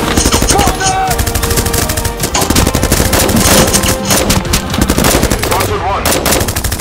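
Continuous rapid automatic gunfire, loud and dense, shot after shot with no pause, as in a firefight.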